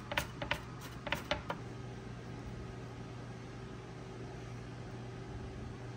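A steady low mechanical hum with a faint even hiss, like a fan or appliance running in a small room, with a few sharp knocks in the first second and a half.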